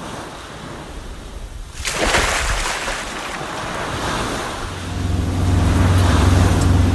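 Intro sound effect of waves washing, swelling to a louder wash about two seconds in, then a motorboat engine comes in at about five seconds and runs with a steady low hum.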